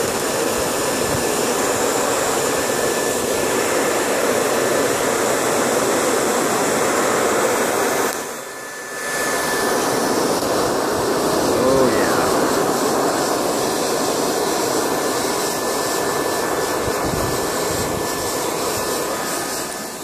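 Hair dryer on its high setting blowing air through a pipe into a charcoal forge: a steady rush of air with a thin motor whine, forcing air into the coals to drive the fire hotter. The rush dips briefly about eight seconds in and fades just at the end.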